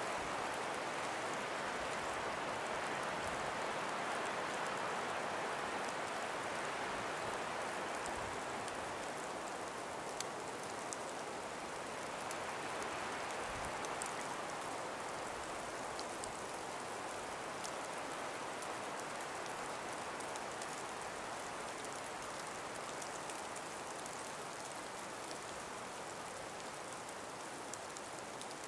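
Calm breeze through an ice- and snow-covered forest: a steady, soft hiss that slowly eases, with faint scattered ticks.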